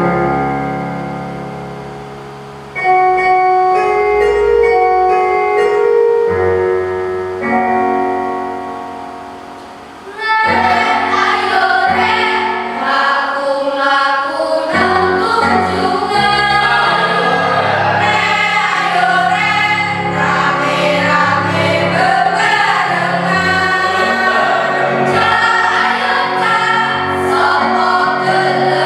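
School choir song with accompaniment. It opens with an instrumental introduction of a few sustained chords, each struck and then fading. About ten seconds in, the full choir comes in singing in harmony.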